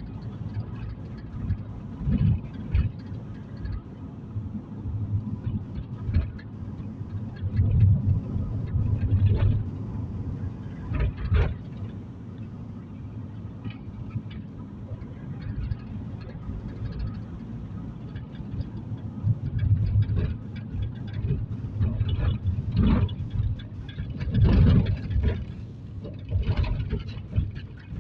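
A car's cabin while driving: steady low road and engine rumble, broken by scattered knocks and thumps, several of them near the end.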